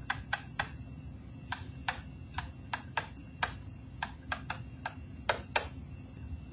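Stylus tip tapping and clicking against a pen-input screen while numbers are handwritten: an irregular run of short, sharp clicks, a few a second.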